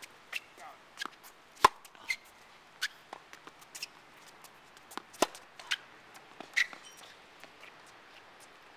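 Tennis ball being struck by rackets and bouncing on a hard court: a string of sharp pops at uneven spacing, the loudest about a second and a half in and again about five seconds in.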